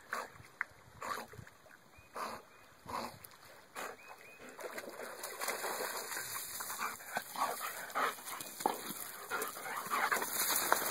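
A dog swimming to the bank of a pond and climbing out: evenly spaced strokes about once a second at first, then, from about four seconds in, a louder and busier run of splashing, dripping and rustling as the wet dog comes out close by, with its breathing and small whines.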